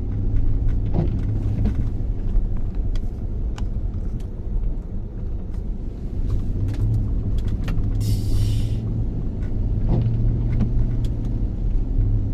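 Car driving slowly on snow-covered city streets: a steady low engine and road rumble, with scattered light knocks and a brief hiss about eight seconds in.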